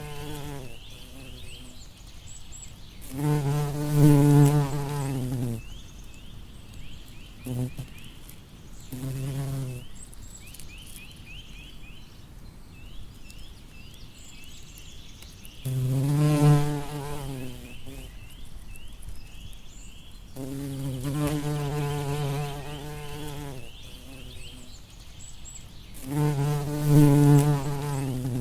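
Bumblebee buzzing in repeated passes, its wingbeat drone wavering in pitch as it comes close and moves off, with quieter gaps between the passes.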